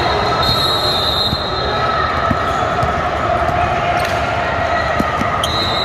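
Basketballs bouncing on the court, a few scattered knocks over the steady, echoing din of a large gym, with some thin high tones held for a second or two.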